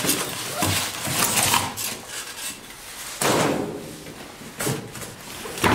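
Plastic foam wrap and cardboard packaging rustling and crinkling as it is pulled out of a box around steel cabinet panels, with a few knocks, the loudest burst about three seconds in.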